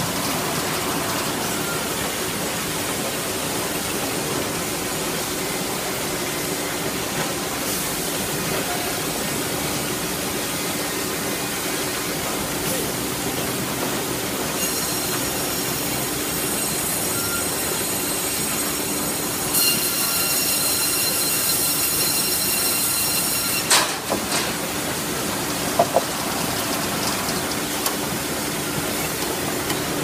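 CNC sawmill line running, its motors and powered roller conveyor making a steady mechanical hum. About halfway through a high-pitched whine rises over it for several seconds, then cuts off abruptly, followed by a few short knocks.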